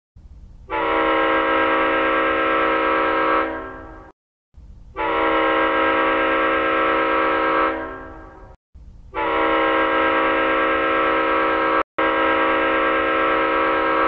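Ice hockey arena goal horn sounding three long, steady blasts of about three seconds each, with short silences between. Each blast dies away rather than stopping dead, and the third runs on longer with a brief break about twelve seconds in.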